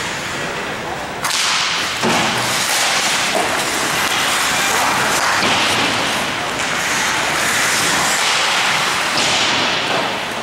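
Ice hockey play in an arena: a sharp stick-and-puck hit at the faceoff about a second in, a second hit shortly after, then a steady hiss of skates on ice and arena noise.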